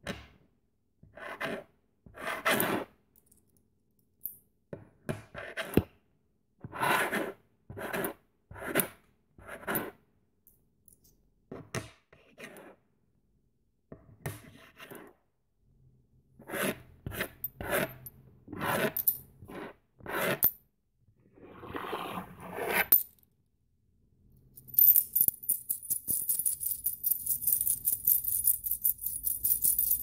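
A series of short coin sound effects: metal coins clinking, jingling and sliding against each other in separate takes with brief pauses between them. About 25 s in comes a longer take of many coins clattering rapidly together for about six seconds.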